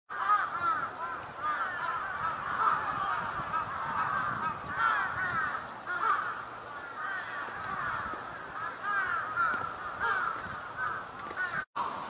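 Many birds calling over one another: a dense, continuous chatter of short rising-and-falling notes. The sound cuts out briefly near the end.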